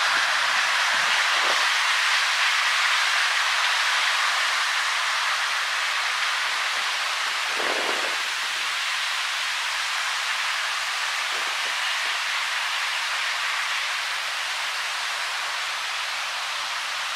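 A freight train's rear boxcar rolling away on the rails: a steady hiss of steel wheels on track, slowly fading as the car recedes.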